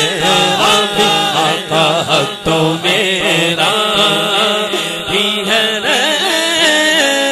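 A man singing an Urdu naat (devotional poem) solo into a microphone in long, ornamented lines that slide between held notes, over a steady low tone underneath.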